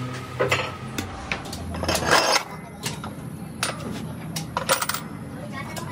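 Metal parts of a truck clutch pressure-plate assembly clinking and clanking as they are handled and fitted: a series of sharp, irregular knocks, with louder clusters about two seconds in and again near the end, over a low steady hum.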